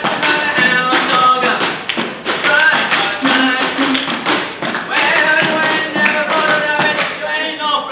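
Rapid rhythmic tapping and knocking, percussion played on everyday objects, over music with a sung melody.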